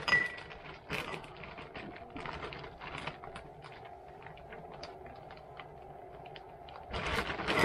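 Plastic zip-top bag crinkling and rustling as a hand pulls pieces of smoked pork out of it, with scattered light ticks and taps, over a faint steady hum. The crinkling gets louder and denser near the end.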